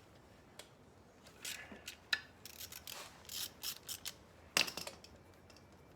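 Irregular clicks, scrapes and light rattles of small parts being handled as wire connectors are fitted to a motorcycle voltage regulator for testing, with two sharper clicks about two seconds in and past four seconds.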